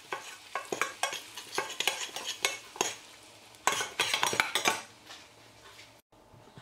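A metal spoon stirring in a small stainless steel saucepan, with irregular clinks and scrapes against the pan, over the faint sizzle of butter frying red pepper powder.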